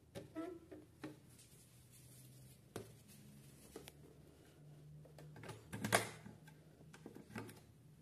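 Hard plastic clicks and knocks from handling a Mandy Piko toy washing machine as its porthole door is swung shut. The loudest knock comes about six seconds in.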